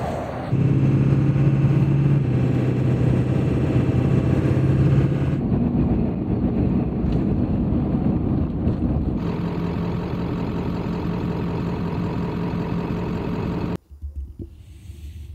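A 1996 Ford F-350's 7.3 L Powerstroke diesel running steadily while driving at cruising speed. Its note shifts abruptly a few times, then drops to a faint low rumble near the end.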